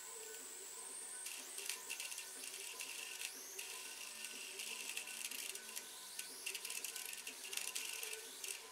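High-voltage crackling from a homemade 80–90 kV voltage multiplier driving a 1B3GT tube. A steady, very high whine gives way about a second in to a harsh buzzing crackle of electrical discharge with a lower tone under it. The crackle breaks off briefly near three and a half seconds and stops just before the end.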